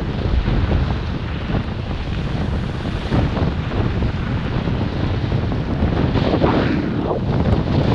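Wind rushing over a head-mounted GoPro's microphone while skiing downhill at speed, a steady low buffeting. Under it, the hiss of skis sliding on snow, swelling about six seconds in.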